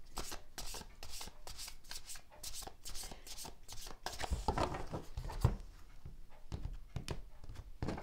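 Tarot deck being shuffled by hand, overhand, the cards slapping and sliding together in quick strokes, with a few louder dull knocks about halfway through.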